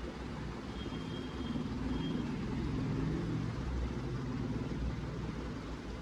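Low steady rumble that swells through the middle and then eases, with a faint high tone twice near the start.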